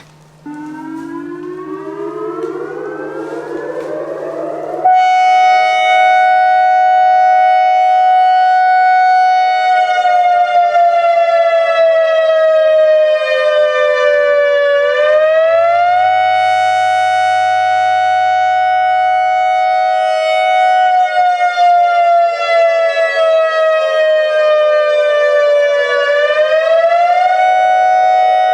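ACA Alertronic AR-1600 electronic outdoor warning siren sounding the Attack (wavering) signal. It winds up in a rising sweep for about four seconds, jumps to a loud steady tone, then twice slides slowly down in pitch and swings quickly back up.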